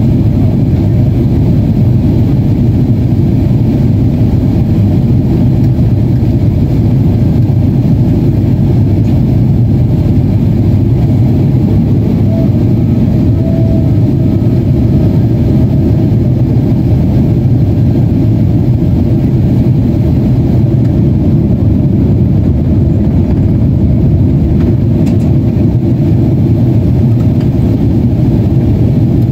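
Steady drone inside the cabin of a Boeing 767-400ER airliner in flight: the noise of its twin jet engines and the airflow, heard through the fuselage as a loud, even, low rumble.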